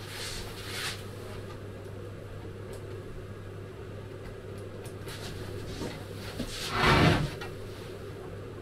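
Pencil scratching marks onto a timber plank in a few short strokes, over a steady low hum. About seven seconds in comes one brief, louder rasp.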